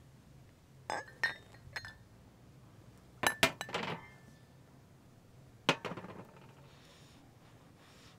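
Glazed ceramic dishes and a clay dizi pot clinking as they are handled and set down: three light clinks in the first two seconds, a louder cluster with a short ring around the middle, and one more clink a little later.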